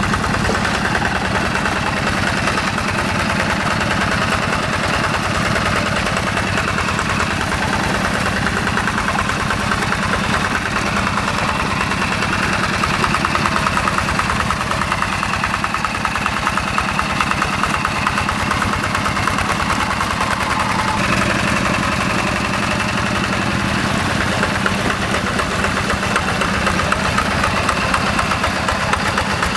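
Two-wheel hand tractor's Yanmar TF85 single-cylinder diesel engine running steadily under load, with a rapid, even chugging, as the tractor churns through paddy mud. The tone shifts slightly about two-thirds of the way through.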